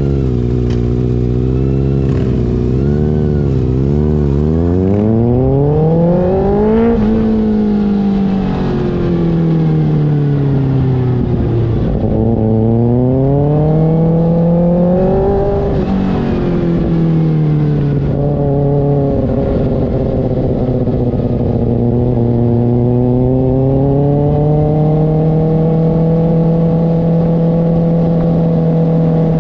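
Kawasaki ZX-6R's inline-four engine through an IXIL aftermarket exhaust, its pitch rising and falling with the throttle. It blips quickly several times at first, then sweeps up and down in longer pulls, and holds a steady higher pitch for the last ten seconds or so.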